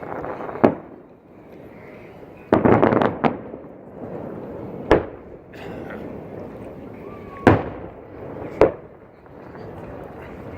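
Aerial fireworks shells bursting with sharp bangs: one shortly after the start, a loud dense cluster of bangs and crackle about three seconds in, then single bangs at about five, seven and a half and eight and a half seconds.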